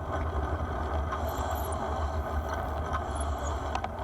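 Wind buffeting the microphone of a camera on a moving bicycle: a steady low rumble under a rush of air.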